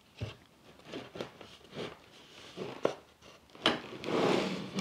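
Light taps and small knocks of a melamine-faced shelf board being handled and fitted against a side panel on wooden joining biscuits, with one sharper click about three and a half seconds in and a short rustling hiss near the end.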